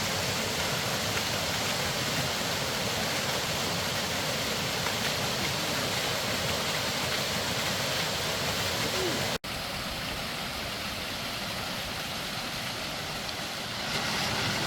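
Steady rushing of water from a large multi-stage waterfall, as an even hiss with no break except a momentary drop-out about nine seconds in.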